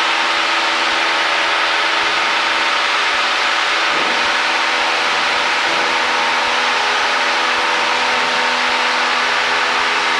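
Cessna 172's piston engine and propeller heard from inside the cabin, a steady drone with an even hum of several held tones, the aircraft climbing out after takeoff.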